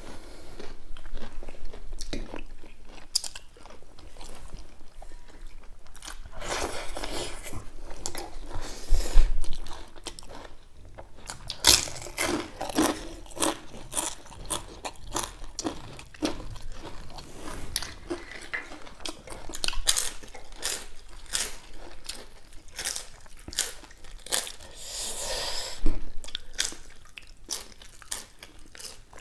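Two people eating by hand, close to the microphone: chewing and biting, with many sharp, irregular clicks and mouth smacks.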